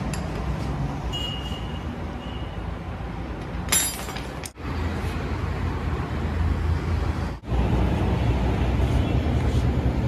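Hand tools working on a motorcycle's front wheel axle hardware, with one bright metallic clink of a spanner about four seconds in, over a steady low background rumble.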